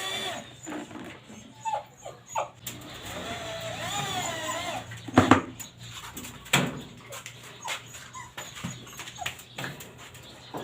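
A dog whining and whimpering in wavering, rising and falling calls, with a few sharp knocks, the loudest about halfway through.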